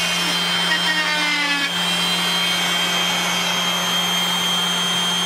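Several corded power tools running together: an oscillating multi-tool plunge-cutting into a board, with a random orbital sander and an electric air compressor running steadily under it. The cutting sound stops a little under two seconds in, while the steady hum and whine go on.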